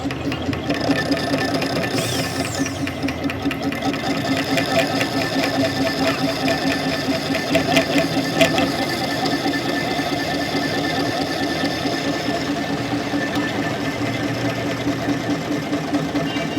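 A machine running steadily with a fast, even pulse, with a few sharp metallic ticks about eight seconds in.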